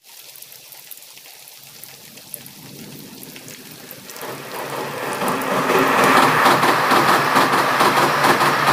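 Train crossing a steel girder bridge: a faint rumble at first, growing from about four seconds in into a loud, steady rush and clatter of wheels on the bridge as the coaches pass close by.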